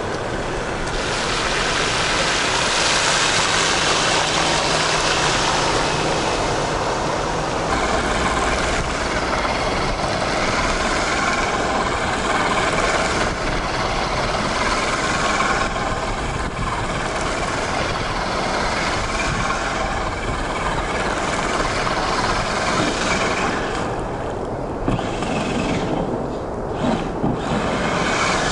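Radio-controlled Traxxas TRX-4 Sport rock crawlers driving on wet pavement and through a rain puddle: a steady hiss of tyres and water spray, thinning out near the end.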